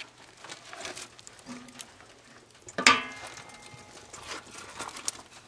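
Chunks of firewood being loaded into a wood furnace's firebox: light knocks and scrapes of wood, then one sharp metallic clang about three seconds in as a piece strikes metal in the firebox, ringing briefly.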